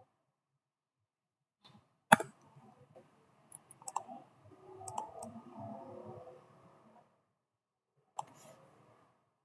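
Computer mouse clicking now and then: one sharp click about two seconds in, a few lighter clicks around four to five seconds, and another near the end, over faint low background noise.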